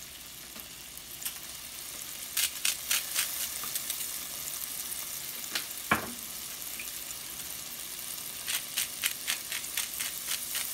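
Garlic and butter sizzling in a frying pan with a steady hiss. Two runs of quick sharp clicks, about two seconds in and again near the end, and a single knock about six seconds in.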